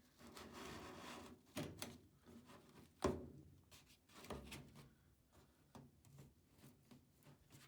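A furnace air filter being slid into its slot in the furnace cabinet: a rustling scrape, then a few knocks and clicks against the housing, the sharpest about three seconds in.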